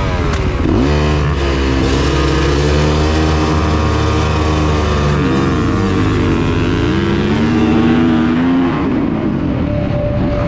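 Dirt bike engine heard from the rider's helmet camera launching hard off a motocross starting gate with other bikes around it: the engine note dips as the bike leaves the line, then climbs, drops and climbs again as the rider shifts up a few times, with wind rush building over it. Near the end the engine note eases off as the bike nears the first turn.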